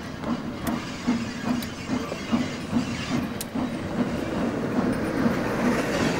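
Steam locomotive working a train, its exhaust chuffing in a steady beat of about two to three a second, with a few sharp clicks.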